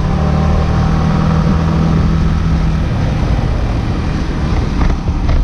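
Yamaha motorcycle engine running on the move, a steady engine tone under wind and road noise; the engine tone drops away about halfway through, leaving rumble and wind.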